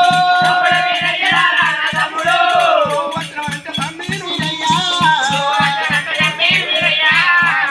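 Oggu katha folk performance: drumming at a fast, even beat with rattling, jingling percussion, under a singer's voice gliding up and down.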